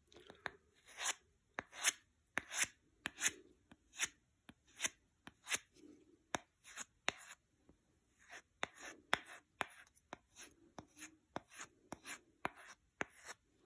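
Steel folding-knife blade stropped on a strop loaded with half-micron diamond emulsion: faint, even scraping strokes about two a second, the compound cutting metal off the edge.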